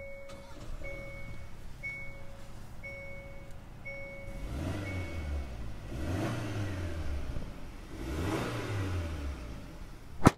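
A car's warning chime sounds about once a second for the first five seconds. Then the Hyundai Santa Cruz's 2.5-litre turbocharged four-cylinder is revved three times in park, each rev rising and falling. A single sharp knock comes near the end.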